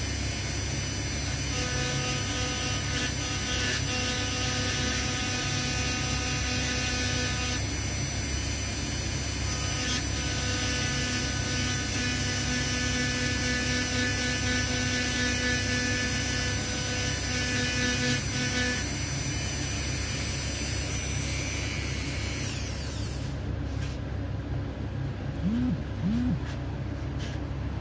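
Dremel rotary tool with a tungsten carbide point running at high speed, engraving a design into a burnished metal band: a steady high whine whose tone shifts as the point cuts. It stops about four-fifths of the way through.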